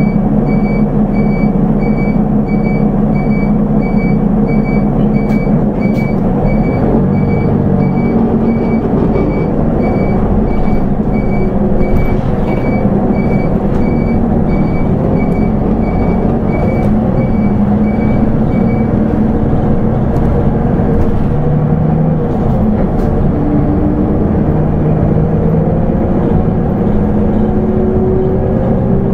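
A Nissan Diesel Space Runner RA city bus's six-cylinder diesel engine idling steadily. A regular electronic beep repeats about one and a half times a second over it and stops about two-thirds of the way through.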